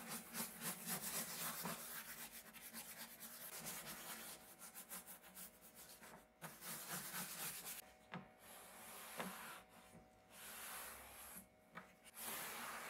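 Paintbrush scrubbing wood stain onto bare wood in quick back-and-forth strokes. In the second half the strokes turn slower and separate, with a cloth rag wiping over the stained wood near the end.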